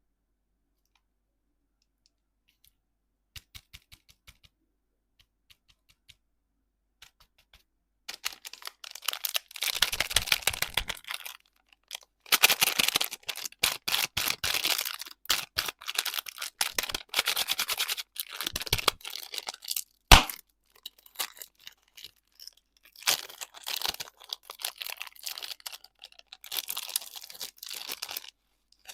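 Plastic candy wrapping being crinkled and torn open in bursts, with scattered clicks and one sharp snap about two-thirds of the way through. The first few seconds are nearly silent.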